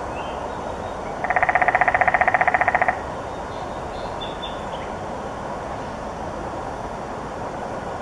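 Downy woodpecker drumming on a dead snag: one rapid, even roll of about ten beats a second, starting about a second in and lasting under two seconds, over steady background noise.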